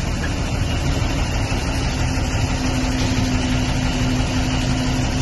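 Vehicle engine running steadily with a low hum, heard from inside the cab while driving, over a steady hiss of tyres on a wet, flooded road.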